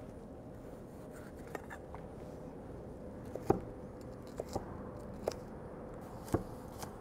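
Chef's knife slicing and dicing a poblano pepper on a wooden cutting board: sharp, irregular taps of the blade against the board, a couple of light ones at first and more frequent, louder ones in the second half.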